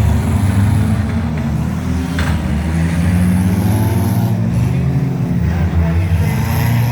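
Demolition derby cars' engines running and revving together in a loud, steady rumble, with a short thump about two seconds in.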